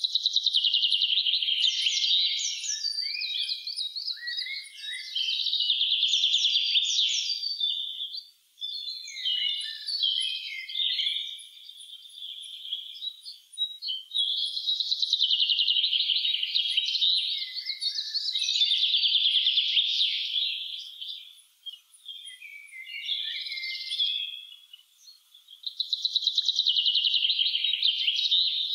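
Songbirds singing in a spring forest: long, fast, trilling song phrases a few seconds each, following one another with short pauses.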